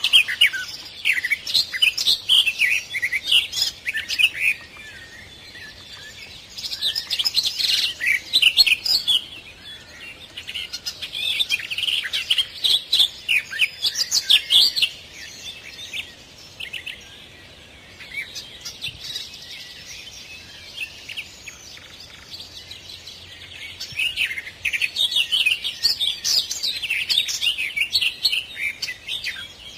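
Songbirds singing: rapid, high chirping phrases in spells of a few seconds, with quieter lulls between.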